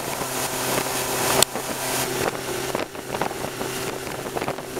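Outboard motor running steadily at speed, with wind buffeting the microphone and water rushing past the hull. A brief sharp click about a second and a half in.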